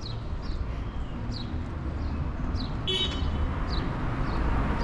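Birds giving repeated short, high, falling chirps over a steady low rumble of city traffic, with one brief harsh squeal about three seconds in.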